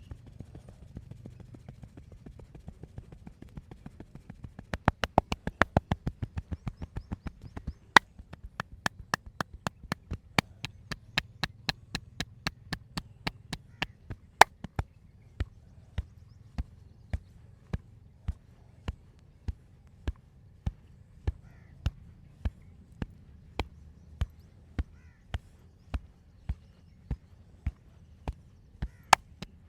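Hands striking the body in rhythmic percussive massage, sharp slaps in a steady beat: a quick flurry about five seconds in, then regular strikes that gradually slow to a little over one a second.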